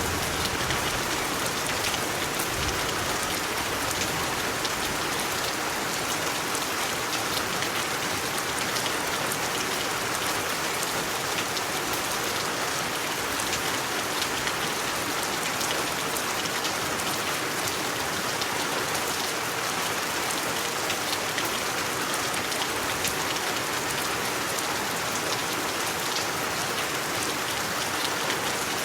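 Steady rain falling on a surface, a dense even patter of drops with no let-up.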